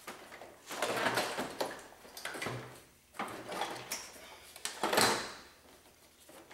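Intake manifold of a BMW M62 V8 being tugged and shifted by hand, scraping and knocking against the engine in about four uneven bursts, the loudest about five seconds in.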